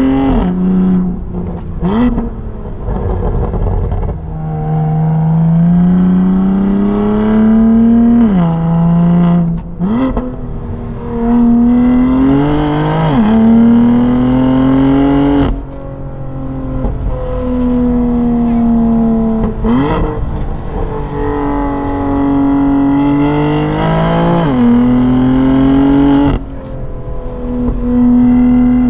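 BMW M4's twin-turbo straight-six, breathing through an aftermarket Active Autowerke equal-length exhaust, heard from inside the cabin while driven hard. The revs climb again and again through the gears, broken by quick gear changes and throttle blips with sharp cracks, and the throttle lifts off abruptly twice.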